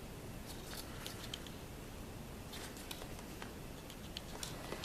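Faint, scattered light clicks and taps of a small cardboard box being handled in the hands, over a low steady hiss of room tone.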